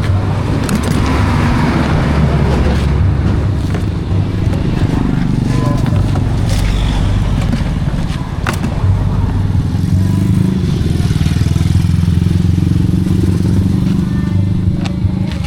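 Motorcycle engine running steadily, its pitch shifting a little about ten seconds in.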